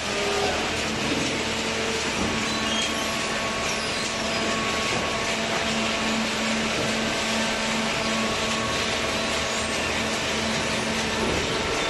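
Industrial cardboard baler machinery running: a steady mechanical noise with a constant low hum.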